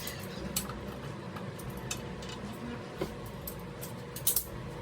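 A few light clinks and taps of small hard objects being handled, the sharpest pair near the end, over a steady low background hum.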